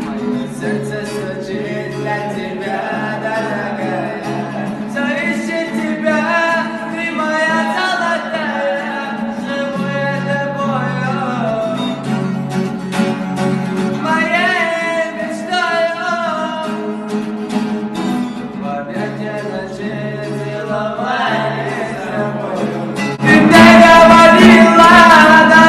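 A song: a solo voice sings a wavering melody over instrumental accompaniment, then the music turns much louder and fuller near the end.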